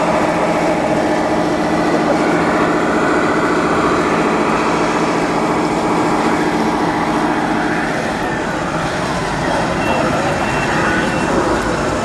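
Radio-controlled model construction machinery running: a steady mechanical hum with motor whine that rises and falls in pitch as the model crawler bulldozer drives and pushes soil.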